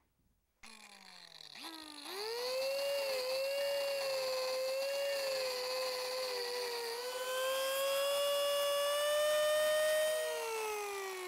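Electric power tool cutting into a log: the motor spins up with a rising whine, runs at a high steady pitch that sags slightly under load, then winds down with a falling whine near the end.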